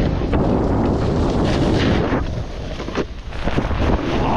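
Wind buffeting the microphone of a camera on a moving snowboarder, with the board's rushing scrape over snow under it. The noise is steady apart from a few short scrapes and a quieter dip a little past halfway.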